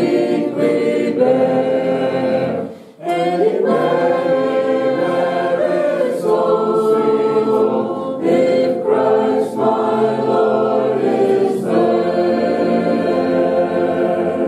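Congregation singing a hymn a cappella, with sustained notes and a short breath break about three seconds in.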